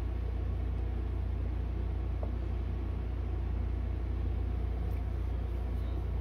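A steady low rumble, unchanging throughout, with a faint hiss above it.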